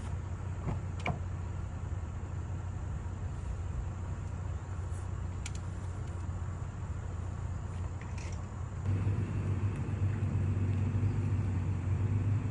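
Toyota Tacoma pickup's engine running, a steady low rumble that gets louder about nine seconds in as the truck pulls away across the grass. A few light clicks come before that.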